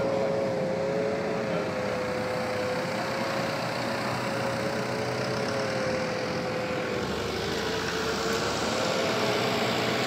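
An engine running steadily at a constant hum, its pitch sagging slightly about seven seconds in and then recovering, as if taking load.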